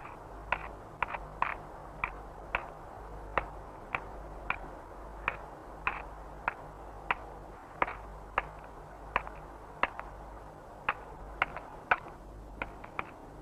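Thrush smashing a snail shell against a stone, giving sharp, irregular knocks about twice a second.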